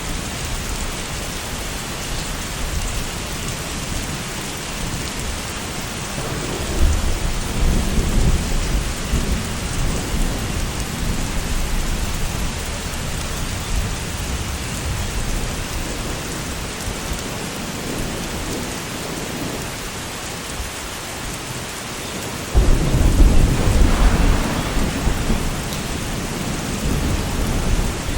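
Steady rain falling, with thunder rolling in: a low rumble swelling about six seconds in, and a sudden louder clap a little past twenty-two seconds that rumbles on for a few seconds.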